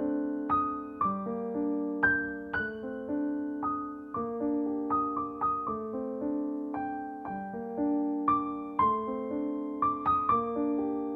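Solo piano music: notes and chords struck one after another, each starting sharply and fading away.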